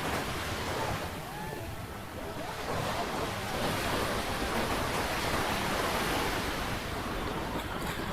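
Steady rush of water with wind buffeting the microphone.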